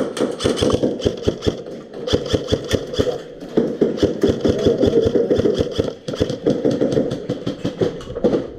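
Electric airsoft rifles firing in rapid full-auto bursts, a fast mechanical rattle with short breaks about two, three and six seconds in.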